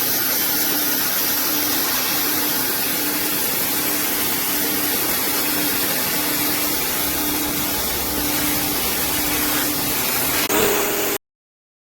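QSMYOYE 2200 W electric pressure washer spraying: a steady hiss of the water jet over a hum from the pump that pulses about once a second. It cuts off suddenly near the end.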